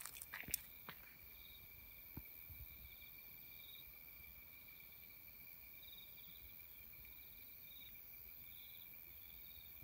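Faint insects chirping: a steady high trill with bouts of fast pulsing chirps that come and go every second or two. There are a couple of light footsteps on gravel in the first second.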